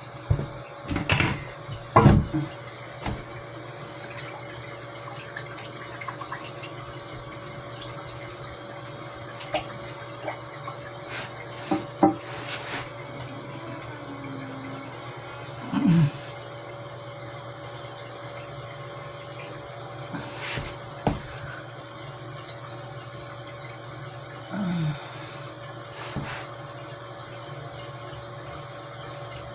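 Water running steadily from a tap, with scattered knocks and clunks throughout, the loudest about two seconds in.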